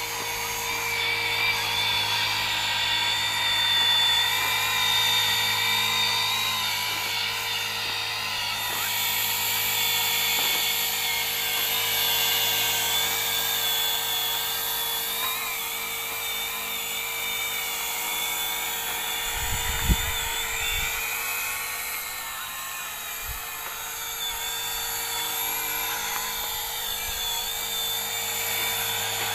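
WLToys V950 RC helicopter's brushless electric motor whining high over the whir of its rotor blades as it hovers and flies, the whine wavering up and down in pitch. A brief low rumble comes about two-thirds of the way through.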